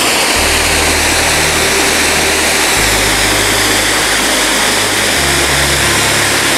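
Background music with sustained low notes that change every couple of seconds, under a loud, steady rushing noise with a slow sweeping whoosh.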